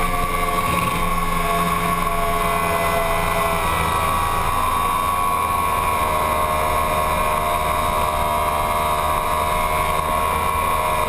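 Yamaha sport bike engine running at high, steady revs with heavy wind rush past the bike, held at nearly constant pitch through a long fast corner.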